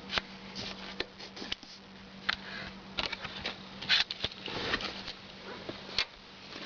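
Scattered light clicks and short rustles of something being handled, at irregular moments, over a faint steady hum.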